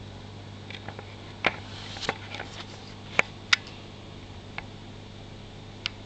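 Steady low hum of marine aquarium equipment, with half a dozen scattered sharp clicks and taps; the loudest two come a third of a second apart, a little past the middle.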